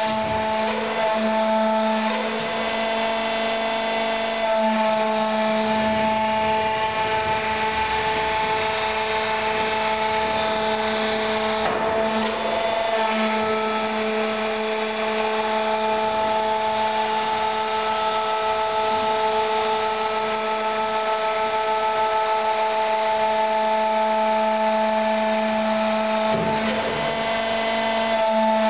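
Acetarc floor-mounted lip-axis molten-metal pouring unit running on trial: a steady motor hum and whine from its drives as the ladle carriage is moved along its track. The tone changes about twelve seconds in and again a couple of seconds before the end.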